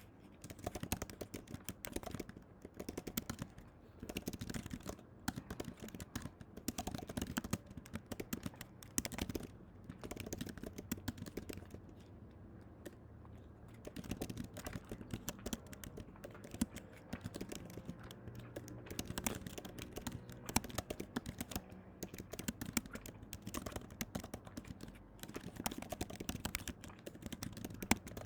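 Rapid small clicks and taps in irregular bursts.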